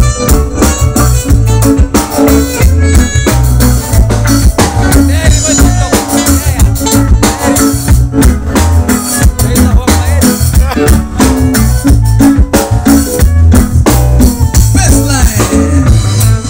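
Live band playing loud, with a drum kit and a red electric guitar.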